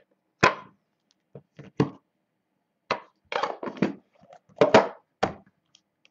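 A small white cardboard box and a stack of trading cards being handled and set down on a wooden table: a string of irregular sharp knocks, taps and short rustles, loudest about half a second in and again near the end.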